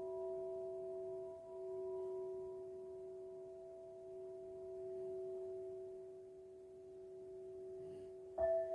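Crystal singing bowl ringing with several steady tones that slowly fade. Near the end it is struck again with a mallet, and a louder fresh tone starts, pulsing as it rings.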